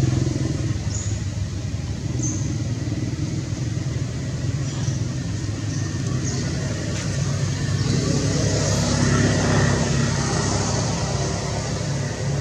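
Steady low rumble of a running vehicle engine, swelling louder about eight to ten seconds in, with a few faint high chirps over it.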